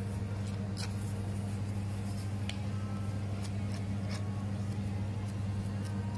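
A steady low hum throughout, with a few faint, short scrapes and clicks of a plastic scraper spreading mayonnaise over crusty bread slices.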